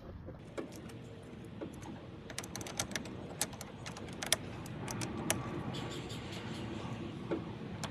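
Jumper cable clamps being handled and clipped onto car battery terminals: scattered small clicks and taps at irregular intervals.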